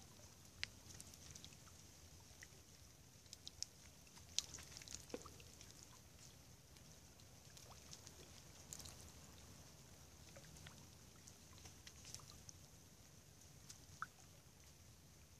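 Near silence over a snowy river: faint, scattered ticks and drips of snow and meltwater falling from the branches onto the water, over a low steady hiss.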